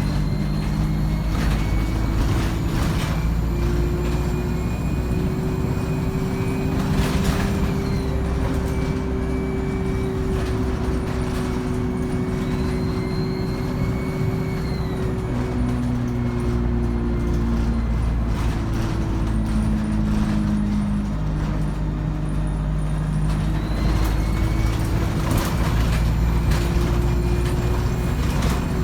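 ADL Enviro 200 single-deck bus heard from on board, under way: the diesel engine's note rises and falls as the three-speed Voith automatic gearbox changes gear, with a high turbocharger whine that rises and falls over it. Scattered knocks and rattles come through with it.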